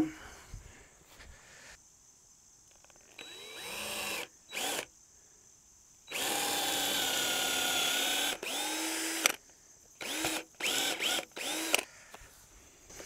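Cordless drill boring a brace-pin hole about 3 inches deep into the end grain of a round wooden fence brace. It begins with a few short spin-ups, then runs steadily for about two seconds and drops in pitch briefly under load. Near the end come several short bursts, each starting with a rising whine.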